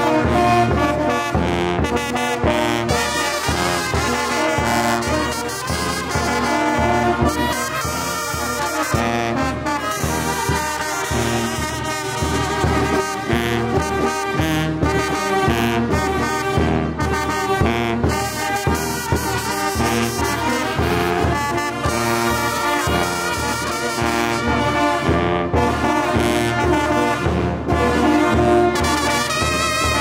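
Small brass band playing a jarabe from Guerrero: trombone, tubas and baritone horns carrying the tune over a steady, regular beat.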